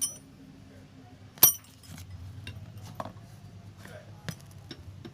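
A few sharp metallic clinks from small metal tools or parts being handled in sewing machine repair work. The loudest comes about a second and a half in, with a brief high ring, and lighter clicks follow, over a faint steady low hum.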